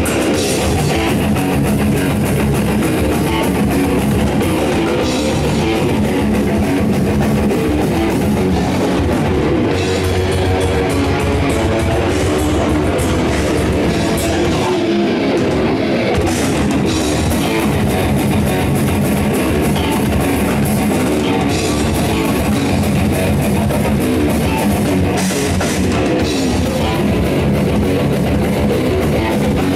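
Progressive death metal band playing live: distorted electric guitars and a drum kit, loud and dense without a break.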